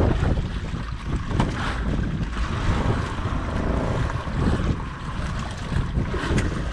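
Wind buffeting the microphone over open sea, with waves washing around a small wooden outrigger boat: a steady, rushing noise.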